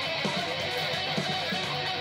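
Seven-string Ibanez RG1527 electric guitar played through a distorted amp tone: held, bending notes over repeated low chugs.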